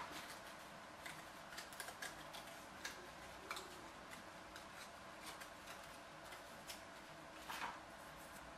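Scattered light clicks and taps of small balsa strips being picked up and handled on a plastic-covered building board, with a short rustle about seven and a half seconds in.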